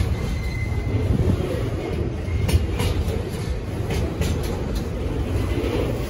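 Loaded container wagons of a freight train rolling past at close range: a steady low rumble from the wheels on the rails, broken by irregular clicks as the wheels pass over rail joints.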